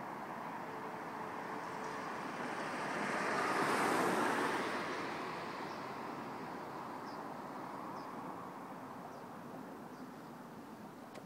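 A car passing along the road: tyre and engine noise swells to a peak about four seconds in, then fades away.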